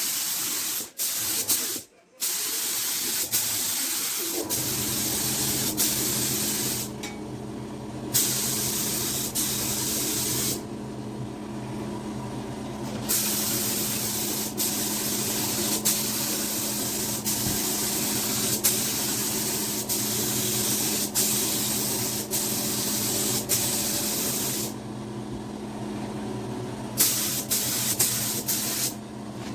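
Paint being sprayed onto the bumper, a loud hiss in long passes broken by short pauses. From about four seconds in, a steady machine hum runs underneath.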